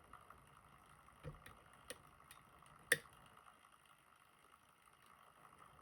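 Metal lock picks clicking and ticking in the keyway of a Nagasawa pin tumbler lock as its pins are worked: four faint clicks, the sharpest about three seconds in.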